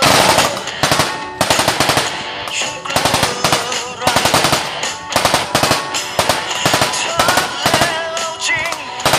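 Automatic machine-gun fire: burst after burst of rapid shots, with only brief gaps between bursts.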